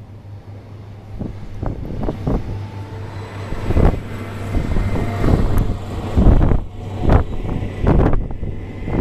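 Wind buffeting the microphone in repeated gusts over the steady low drone of a High Speed Train's Class 43 diesel power car passing.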